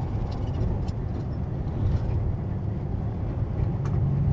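Semi truck driving on the highway, heard from inside the cab: a steady low diesel engine drone with road noise, and a few faint clicks.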